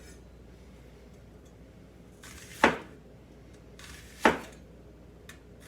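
Sharp cleaver chopping through onion onto a cutting board: two hard chops about a second and a half apart, each with a brief slicing sound just before the blade strikes.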